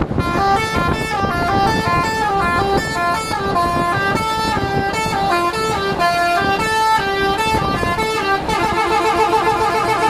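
A lorry's basuri (telolet) musical air horn playing a tune in quick stepped notes, over the lorry's engine and road noise. About eight and a half seconds in, the horn switches to a faster warble of notes.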